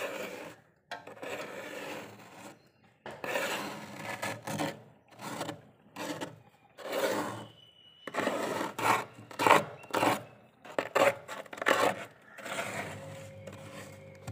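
Small plastic scraper scraping through thick, powdery freezer frost, in about a dozen separate strokes of uneven length with short pauses between them.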